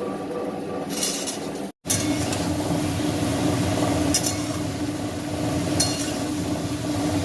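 Ridge gourd frying in a pan and being stirred, with a metal spatula clinking against the pan a few times. The sound breaks off for a moment about two seconds in.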